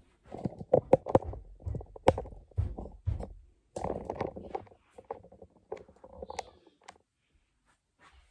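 Irregular knocks, clunks and rustling as decorations are handled and set down, mixed with handling noise of the camera.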